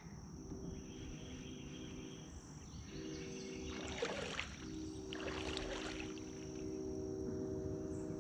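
Water sloshing and dripping around kayaks as a trot line is hauled up hand over hand, with a couple of louder swishes about three to five and a half seconds in. A thin steady high whine and a low hum that comes and goes sit underneath.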